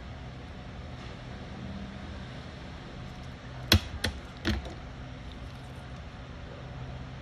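Two sharp clicks a little under a second apart, the first the louder, over a steady low hum.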